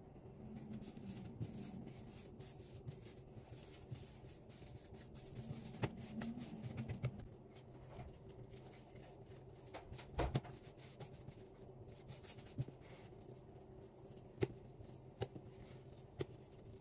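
Hands kneading and tearing soft yeast dough on a stone countertop: quiet squishing and rubbing, with a few light thumps, the strongest about ten seconds in, over a faint steady hum.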